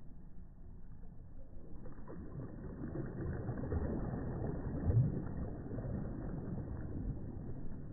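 Small waves breaking softly close by: a low wash of surf that swells about two seconds in, peaks around the middle and slowly eases off.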